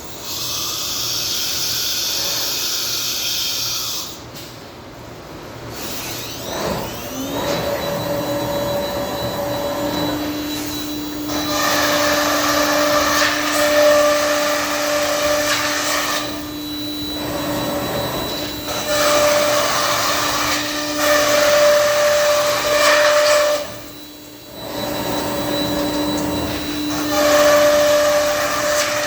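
Thermwood CS-45 CNC router running: a steady spindle whine over a loud rushing machine noise. The noise drops away briefly several times, between working passes.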